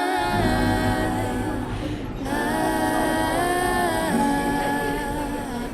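Background music: a slow love song, a singer's voice holding long, gliding notes over soft accompaniment.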